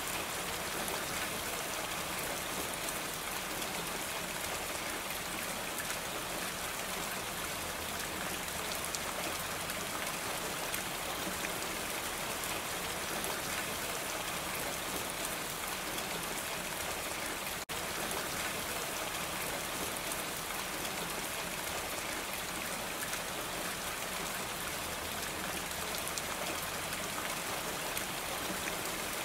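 Steady rain falling on a roof, an even hiss with no let-up, broken only by a split-second dropout a little past halfway.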